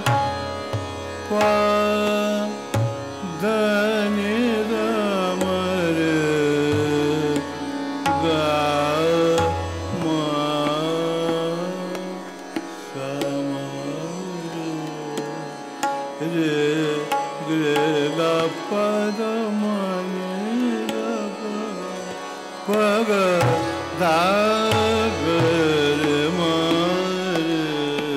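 Hindustani classical male vocal, sung in long ornamented gliding phrases over harmonium, tanpura drone and tabla. The tabla's deep bass strokes drop out for about twelve seconds in the middle and come back near the end.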